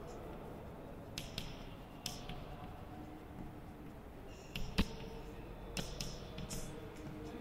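Chalk writing on a blackboard: short scratchy strokes and light taps come and go, with one sharp tap a little under five seconds in.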